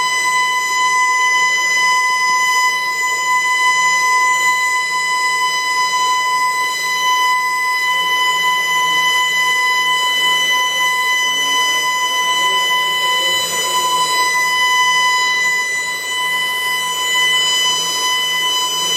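Building evacuation alarm sounding one continuous, steady high-pitched tone, with a faint murmur of people's voices underneath.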